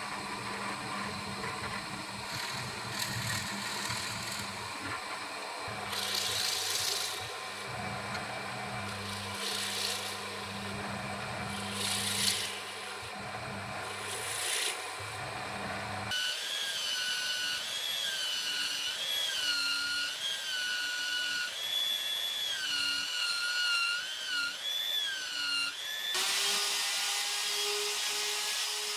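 Benchtop drill press running and boring into soft wood, with several short bursts of cutting noise as the bit bites. About halfway through this gives way to a power-tool motor whose pitch repeatedly dips and recovers under load. Near the end a plunge router runs at a steady high speed.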